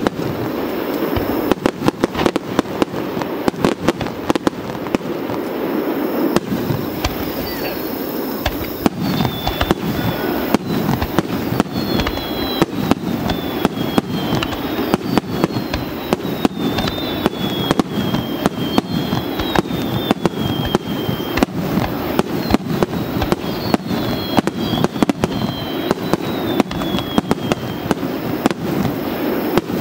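Aerial fireworks display: a rapid, continuous string of sharp bangs as shells launch and burst, over a steady low rumble, with high whistles falling in pitch through the middle.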